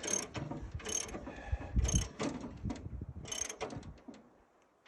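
Blade-tension screw of a bandsaw mill being cranked tight against its heavy spring, with a metallic clicking squeak on each stroke, about one a second, stopping about four seconds in.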